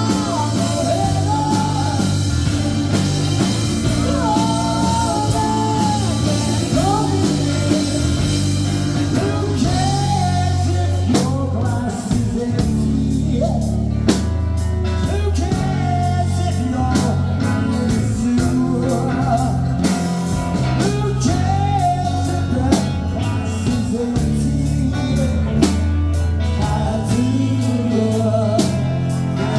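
Rock band playing a song, a lead singer over a steady drum beat, bass and guitar.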